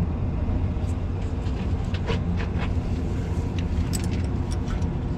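Scattered small clicks and taps of parts being handled over a steady low machine drone.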